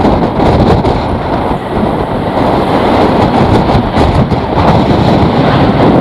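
Strong, gusty wind buffeting the microphone: a loud, rumbling roar that swells and flickers unevenly throughout.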